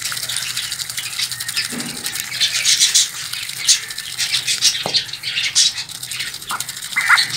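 Ducks feeding from a bare hand: rapid, irregular clicking and rattling as their bills dabble through the grain in the palm. A few brief high calls sound in the second half.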